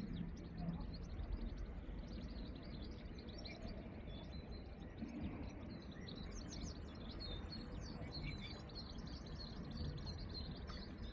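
Small birds chirping and singing from the bankside vegetation, many short high calls overlapping and busiest in the middle, over a low steady rumble.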